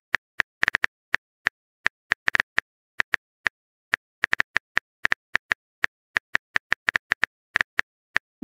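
Phone on-screen keyboard key clicks as a text message is typed: single short clicks in an irregular run, a few a second, with brief pauses between bursts.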